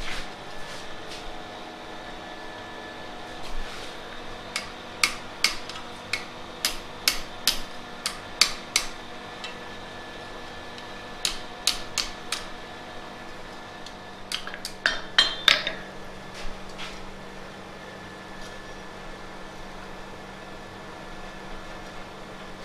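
Blacksmith's hammer striking a flat iron bar on a steel anvil, forging a toasting fork into shape: sharp metallic blows in short runs of several strikes with pauses between, some ringing briefly, over a steady hum.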